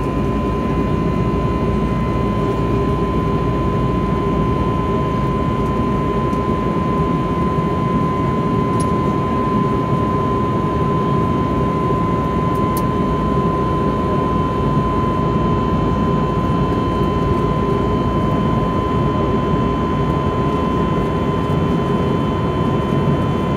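Cabin noise of an Airbus A320neo in the climb, heard beside the wing: the CFM LEAP-1A turbofan runs at steady thrust, a constant mid-pitched tone and a lower hum over a dense rush of engine and air noise.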